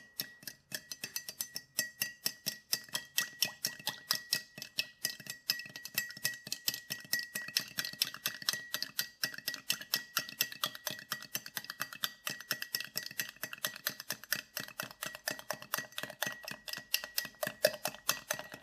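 A spoon stirring gelatin powder into cold water, clicking quickly and evenly against the side of the container.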